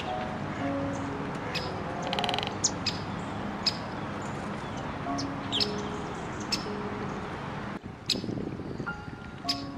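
Small birds chirping in short, sharp calls about once a second, with one brief rapid trill about two seconds in, over soft background music of held notes.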